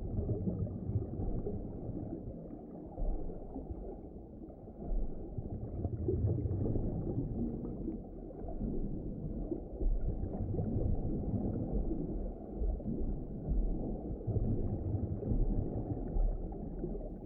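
Low, muffled water ambience, like an underwater recording, swelling and easing every few seconds.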